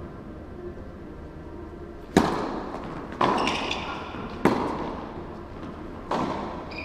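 Tennis rally on an indoor court: a serve struck with a racket about two seconds in, then three more ball hits and bounces about a second apart, each one sharp and echoing in the hall.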